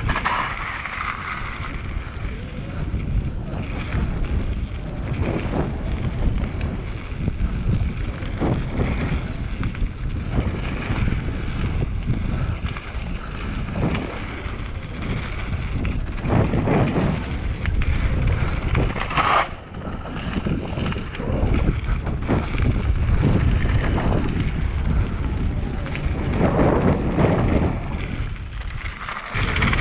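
Wind buffeting the microphone over the rumble of mountain bike tyres rolling on a dusty gravel downhill trail, with the bike rattling and knocking over bumps and landings.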